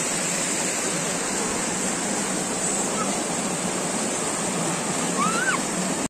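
Waterfall water cascading over sloping rock slabs: a steady rush of white water. A brief high voice rises and falls about five seconds in.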